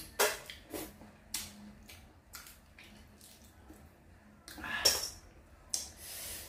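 Wet eating noises of a person picking apart boiled armored catfish with the fingers and sucking the flesh: a run of short smacks and sucks, a louder, longer slurp about five seconds in, and a breathy hiss near the end.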